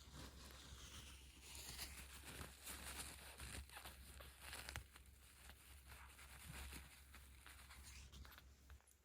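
Soft, irregular rustling of fur and bedding as a 17-day-old kitten is stroked, over a faint low steady rumble of purring.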